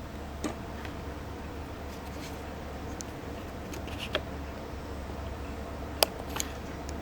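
A few small clicks and taps of a die-cast metal toy vehicle being handled, the sharpest about six seconds in, over a steady low hum.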